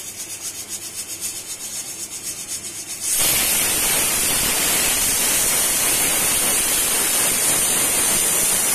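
Aluminium stovetop pressure cooker with a weighted whistle valve: a pulsing hiss at about five pulses a second, then, about three seconds in, a sudden loud steady rush of steam as the cooker whistles. The whistle is the sign that it has come up to pressure.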